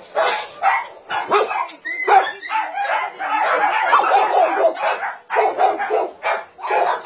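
Many dogs barking at once in overlapping, repeated barks, with a high yelp about two seconds in.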